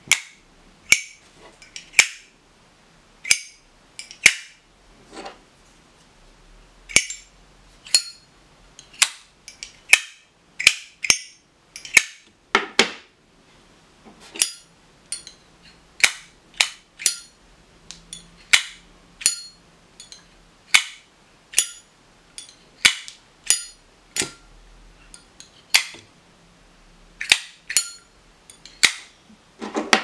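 Zippo windproof lighters, an original and a fake, having their hinged metal lids flicked open and snapped shut over and over: sharp metallic clicks, about one to two a second, some in quick pairs.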